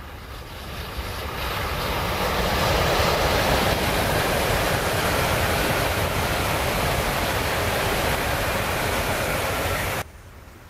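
Tokaido Shinkansen bullet train passing at speed: a rushing noise that swells over the first two seconds, holds steady, then cuts off suddenly near the end.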